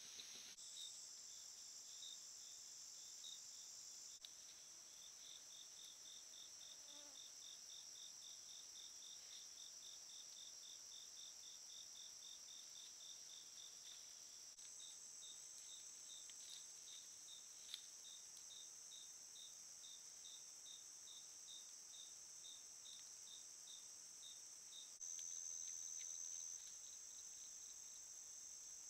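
Night insect chorus: a steady high-pitched trill of crickets and other insects, with a cricket chirping evenly at about four chirps a second. The chorus shifts abruptly a few times where one trail-camera clip gives way to the next.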